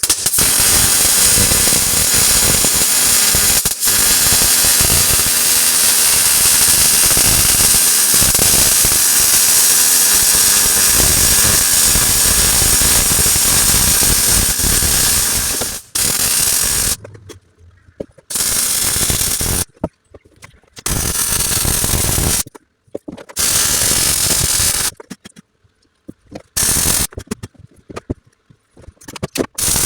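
Welding arc crackling as steel seat-mount plates are seam welded to a car body: one long run of about sixteen seconds with a brief break near four seconds, then several short runs of one to two seconds with pauses between.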